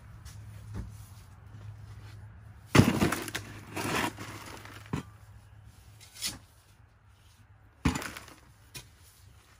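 Garden shovel digging in mulched soil and tipping soil and a rosemary root ball into a plastic nursery pot. There are two sharp knocks, about three seconds in and again near eight seconds, with smaller scrapes and ticks between.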